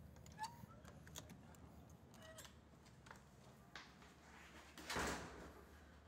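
Quiet library room tone with a few faint clicks and a brief rushing swish about five seconds in.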